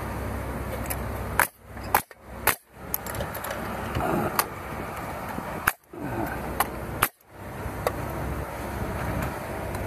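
Pneumatic nail gun firing nails into an exterior wall panel: five sharp shots, three close together about a second and a half in and two more spaced out later, with lighter clicks in between.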